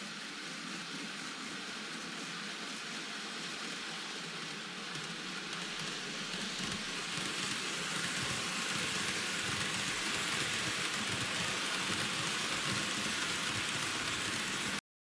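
TOMIX N-gauge E233-5000 series model train running on track: a steady rolling rattle of wheels on rail that grows louder from about five seconds in, then cuts off suddenly near the end.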